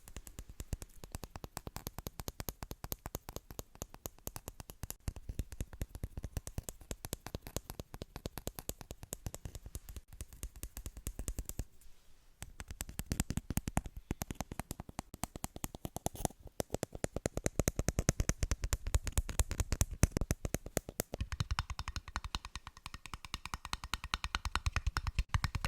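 A fast, close-miked run of small clicks and taps from fingers working an object's surface, as in an ASMR trigger. It pauses briefly about halfway through, then comes back louder and fuller.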